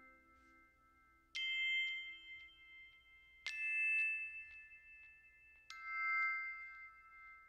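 Background music: three bell-like chime notes, struck about two seconds apart, each left ringing until the next.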